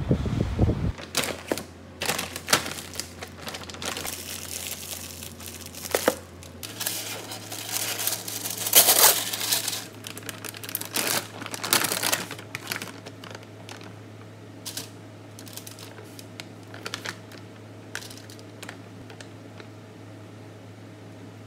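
A plastic frozen-food bag crinkles loudly in bursts as it is torn open and rummaged in, then gives only a few light rustles and clicks over a low steady hum. Wind buffets the microphone for about the first second.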